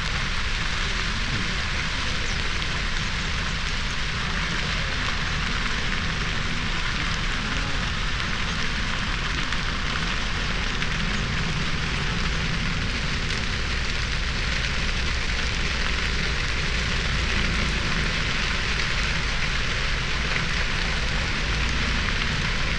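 A large grass fire burning on a hillside: a steady, dense crackle of dry grass with a low rumble underneath.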